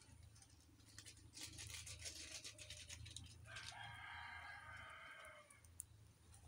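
A rooster crowing once, one long crow lasting about two seconds from around the middle. Before it comes a stretch of soft crackling.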